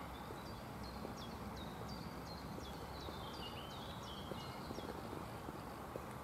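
High-heeled shoes clicking faintly on a paved path at a walking pace, under a steady outdoor hiss. A bird sings a run of about a dozen short down-slurred whistles that step lower in pitch, starting about half a second in and ending near five seconds in.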